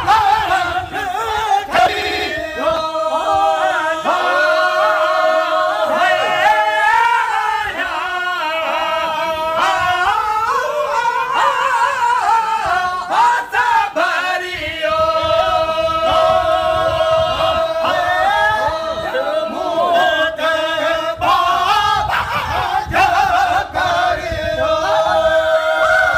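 Male voices singing a Sindhi molood, a devotional chant, in long drawn-out held notes that waver and ornament, over a steady lower held note. The line breaks off briefly a few times for breath.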